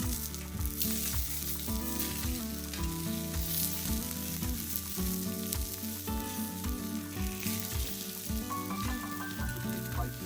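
Food sizzling on a barbecue, under background music with a steady beat.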